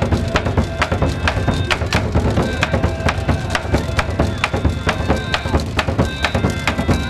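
Live Portuguese folk band music: a fast, steady beat of sharp, clacking wooden percussion under short held melody notes.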